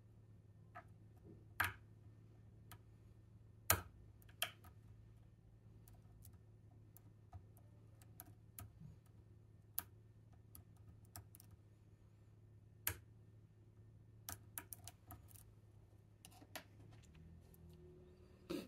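Small metallic clicks and ticks, irregular, from a hook pick working the pin stack of an ASSA Guideline lock cylinder under a tension tool. A few clicks stand out louder, and a quick run of clicks comes about three-quarters of the way through, all over a faint low hum.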